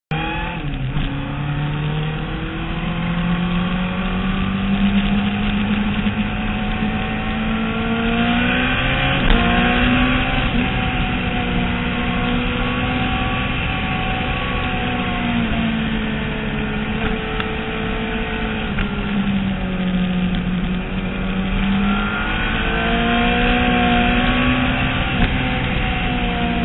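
Motorcycle engine heard from on board at track speed, its pitch climbing as it accelerates and dropping off repeatedly as the rider shifts and slows for corners.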